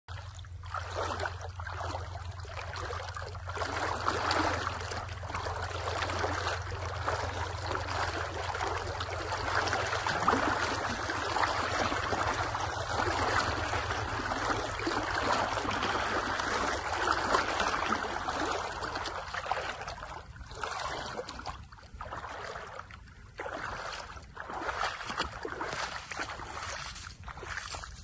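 River water rushing and splashing close to the microphone, breaking into separate splashes in the last several seconds.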